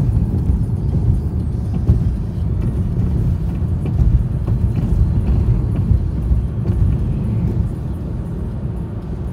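Lada Vesta Cross driving at highway speed, heard from inside the cabin: a steady low rumble of tyre and road noise.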